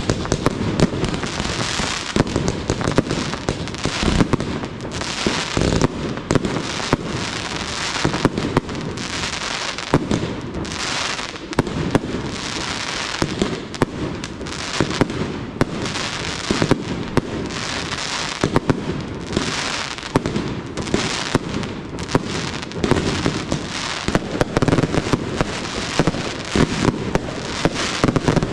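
Professional fireworks display firing: launches and shell bursts in quick, unbroken succession, bang after bang.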